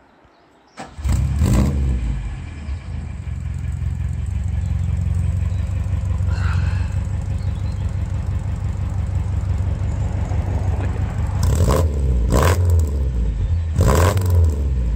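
A 1971 Saab 96's 1.5-litre V4 engine, breathing through a Weber 32/36 DGV carburettor and a custom stainless steel exhaust, starts about a second in and settles into a steady idle through the exhaust. It then takes three short throttle blips near the end.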